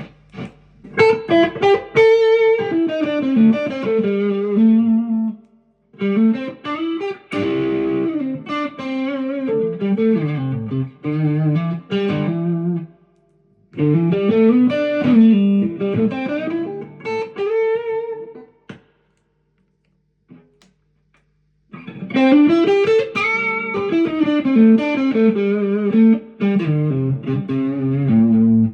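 2005 Fender Stratocaster Deluxe electric guitar played through an amp: picked melodic lines and arpeggios in four phrases, separated by short pauses, the longest about two seconds near the two-thirds mark.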